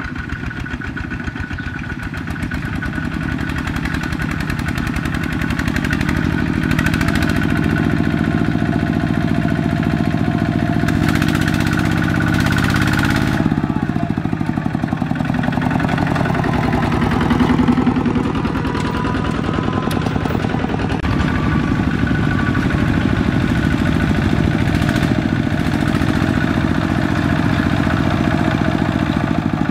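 Kubota ZT120 single-cylinder diesel engine of a two-wheel walking tractor running steadily while it pulls a trailer loaded with rice sacks.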